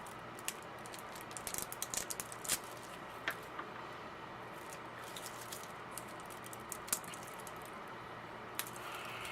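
Scattered light clicks and taps of a handmade soap bar and its packaging being handled, a little cluster in the first few seconds, then only a few, over a steady low hiss.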